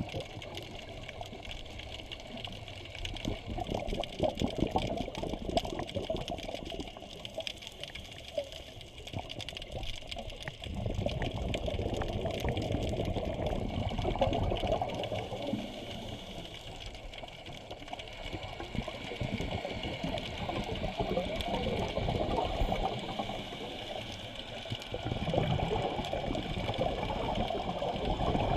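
Underwater ambience: a rushing water haze full of fine crackling, swelling louder about ten seconds in and again near the end.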